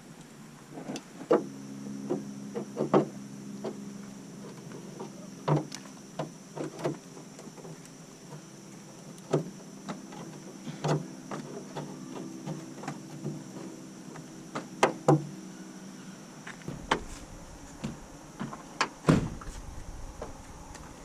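Scattered clicks and knocks of tools and metal hardware being handled on a car hood, over a steady low hum that stops about 16 seconds in, with a heavier thump near the end.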